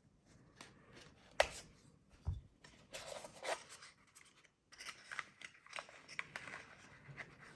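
Keycap packaging being handled and opened by hand: rustling and scraping with a few sharp clicks, the loudest about a second and a half in.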